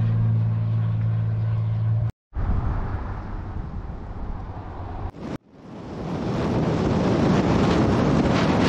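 A vehicle's engine drones steadily on one low note. After an abrupt cut about two seconds in comes a rumbling rush of road and wind noise. After a second cut about five seconds in, wind buffets the microphone, growing louder toward the end.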